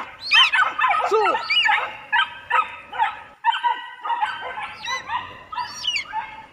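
Hunting dogs yelping and barking in rapid, high-pitched volleys, several calls a second with falling pitch, pausing briefly about three and a half seconds in.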